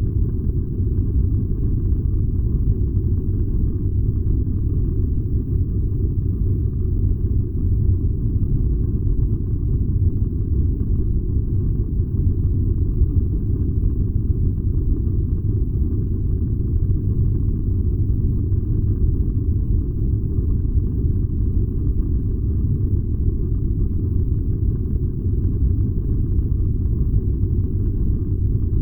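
Furnace running: a steady, unbroken low rumble.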